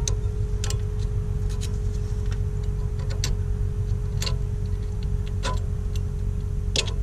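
Hand ratchet clicking in short strokes as the nut on a sway bar end link is turned, one sharp metallic click about every second, unevenly spaced, over a steady low hum.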